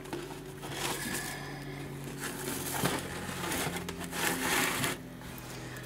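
Rustling and crackling of seedling containers being handled, with a few small clicks, over a steady low hum.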